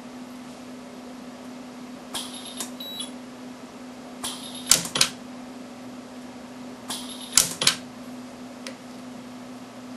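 Orion micro TIG jewelry welder firing weld pulses onto a ring prong: groups of sharp electric snaps, each group with one or two loud cracks, repeating about every two and a half seconds, over a steady low hum.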